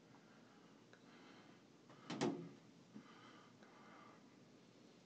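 Quiet room tone broken by a single short knock or bump about two seconds in.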